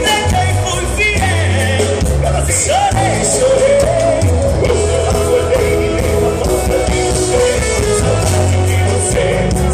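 Live sertanejo band playing loudly through a concert PA: a man singing over acoustic guitar, accordion, bass and drums.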